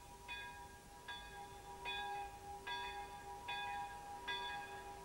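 A church bell ringing, struck a little faster than once a second, its hum carrying on between strikes.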